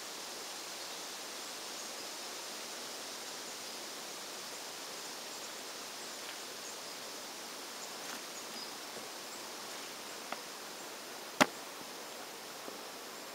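Steady outdoor evening hiss with faint high insect chirring. A single sharp click near the end is the loudest sound, with a couple of fainter ticks shortly before it.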